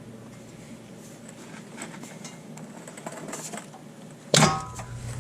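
Pry bar working at the inner CV joint of a Subaru WRX front axle with faint scrapes and clicks, then about four seconds in a sudden loud metallic clunk with a brief ring as the axle pops out of the transmission.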